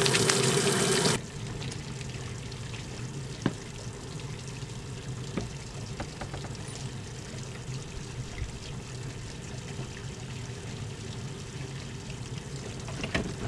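Water running steadily through a hose from a service-point tap into a motorhome's fresh-water tank, cut off sharply about a second in. Then a quieter steady hum, with a few faint clicks and knocks as the toilet-cassette hatch is handled.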